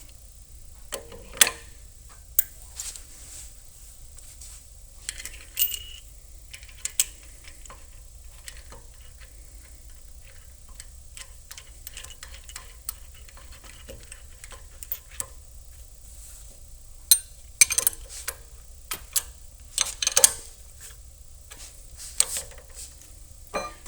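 Scattered metal clinks, clicks and knocks from handling and fitting a barrel vise onto a steel bench vise mount, louder in a cluster near the start and again in a run of knocks toward the end.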